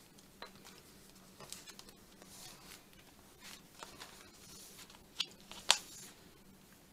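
Paper cutouts being shifted and pressed onto a planner page by hand: faint rustling and small taps, with two sharper clicks close together about five seconds in.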